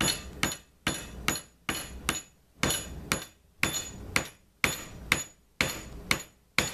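Steady hammer blows, about two a second, on a steel extension bar used as a drift, driving an old wheel bearing out of a riding-mower wheel hub. Each strike is a sharp metallic hit with a short ring.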